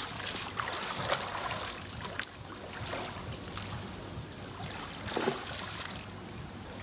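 Pool water splashing and sloshing as a swimmer ducks under and kicks up into a handstand, with a few sharper splashes about a second in, at around two seconds and again past five seconds.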